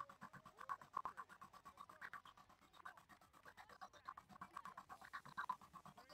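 MakerBot Replicator 2 3D printer at work: its stepper motors whir as the extruder head moves, a quiet, fast, even pulsing buzz with brief shifts in pitch.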